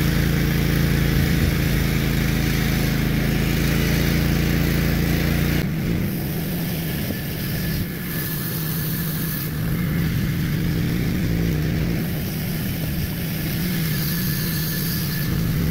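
Wood-Mizer LT15GO portable bandsaw mill running, its gas engine driving the band blade through a log as the head is pushed along. The engine note changes abruptly about six seconds in.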